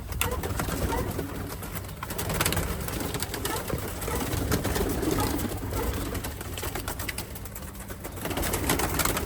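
A flock of feral pigeons cooing continuously inside a grain bin, with scattered clicks and knocks.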